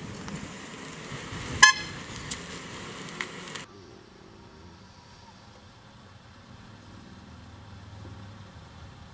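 A car horn toots once, short and loud, about a second and a half in, over a steady outdoor hiss, with a couple of small knocks after it. The sound cuts off suddenly a little past three and a half seconds, leaving only a faint low hum.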